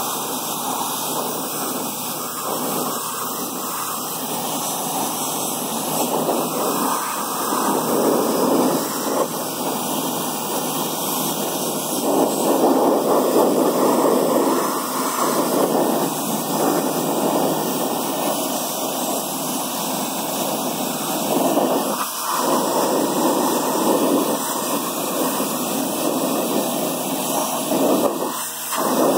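Pressure washer jet spraying water onto a wheel rim and tire, a loud steady hiss that swells and eases as the wand moves, with a couple of brief dips near the end. It is rinsing off a sprayed-on wheel cleaner.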